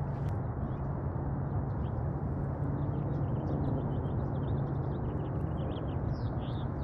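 Small birds chirping in a quick, irregular stream of short high notes over a steady low rumble.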